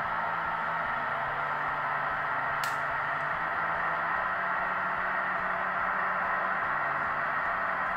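Sound decoder in a model E.428 electric locomotive playing the engine's recorded running sounds at crawling speed: a steady hiss with a faint hum. A single sharp click comes about two and a half seconds in.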